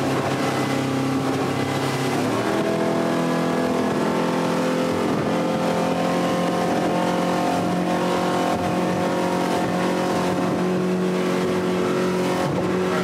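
Yamaha outboard motor running a boat at planing speed; its revs climb about two seconds in and then hold steady at a higher pitch, as the throttle is opened from about 4000 to 5400 rpm. Steady rushing wind and water noise runs underneath.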